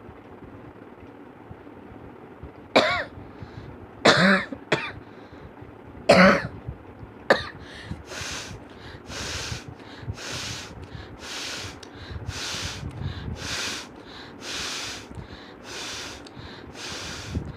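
A person coughing sharply five times, then blowing hard through the nose again and again, about once a second.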